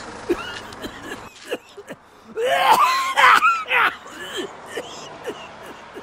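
Human voices making short laughing and exclaiming sounds, with a loud wavering cry about two and a half seconds in that lasts around a second and a half.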